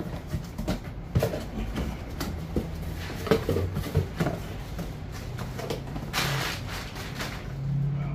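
Tackle packages being handled and pulled out of a cardboard box: a run of knocks and clatters, then a brief rustle about six seconds in, over a low steady hum.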